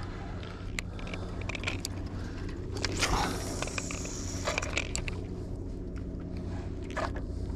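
Spinning reel being cranked to retrieve the line, with small mechanical ticks and scrapes, over a steady low hum. A louder, brief rushing noise comes about three seconds in.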